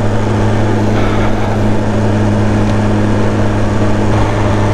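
BMW S1000RR inline-four sportbike engine running at a steady throttle while riding, its note holding one even pitch.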